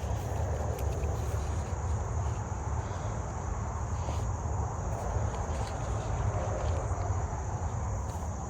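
Steady high-pitched drone of an insect chorus, over a low rumble and rustling of corn leaves and husks being handled as an ear of corn is picked.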